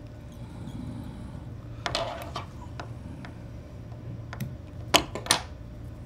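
Small handling noises of fly tying at a vise: a brief rustle and ticks as thread is wrapped over a marabou strip on the hook, then two sharp clicks close together about five seconds in, over a steady low hum.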